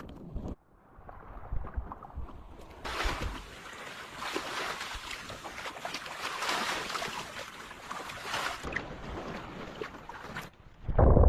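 Sea waves washing onto a beach: a hiss of surf that swells about three seconds in, holds for several seconds and cuts off shortly before the end.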